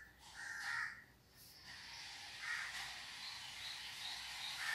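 Crows cawing several times in the background, each caw short and harsh, with a steady hiss rising about two seconds in.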